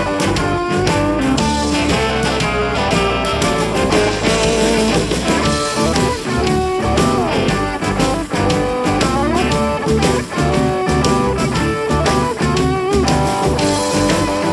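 Les Paul Junior electric guitar played lead: a run of picked single notes with frequent string bends.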